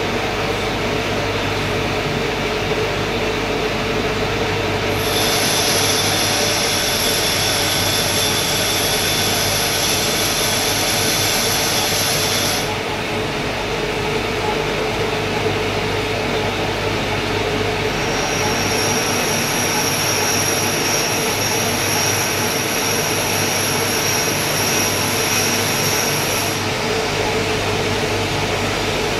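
Lathe running steadily with a constant hum. A high-pitched squeal of the cutting tool on the workpiece comes in about five seconds in for about seven seconds, then again for about eight seconds in the second half.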